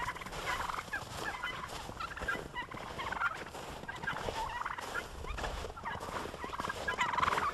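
A flock of farm poultry calling over one another, many short overlapping calls; the birds are hungry after the snowstorm.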